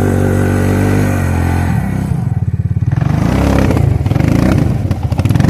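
Suzuki King Quad ATV's single-cylinder engine running hard at steady revs, then bogging down about a second and a half in to a slow, pulsing chug as the quad struggles in deep snow.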